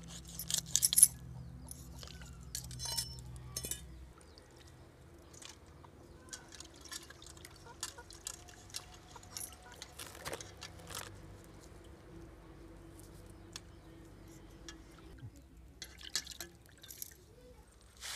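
Cleaning a mrigal fish over a steel pan of water: a burst of sharp knife scrapes in the first second, then scattered small splashes, drips and clinks against the pan.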